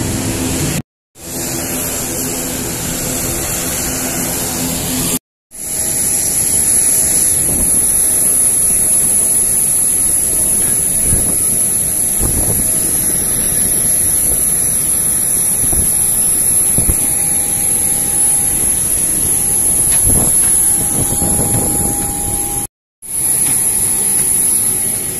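Jet aircraft noise: a loud, steady rush with a constant high whine over it, cut off briefly about a second in, about five seconds in and near the end.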